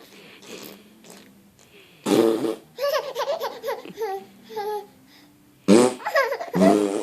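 Blown raspberries (mouth fart sounds), one about two seconds in and another near six seconds, each followed by a baby's high-pitched laughing squeals.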